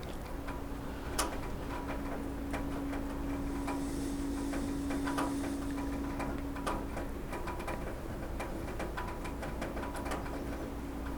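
Rain dripping onto a roof: irregular drops tapping and ticking, some single drips louder than the rest. A steady low hum runs under them for most of the time and fades near the end.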